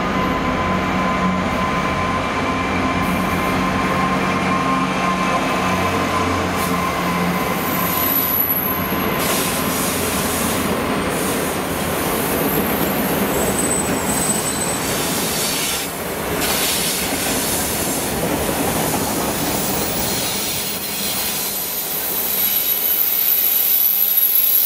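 A Class 66 diesel freight locomotive passes with its engine running, then a long rake of flat wagons loaded with steel coils runs by, their wheels noisy on the rails. A high, thin wheel squeal comes in about eight seconds in and again near the end.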